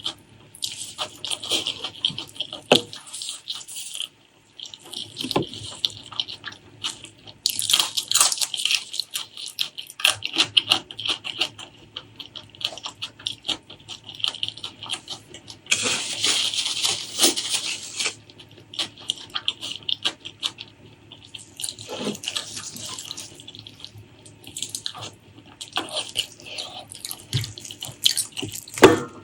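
Close-miked wet eating sounds from spicy braised pork leg curry with rice: sticky chewing, lip-smacking and sucking, with many sharp mouth clicks, coming in irregular stretches with short pauses between.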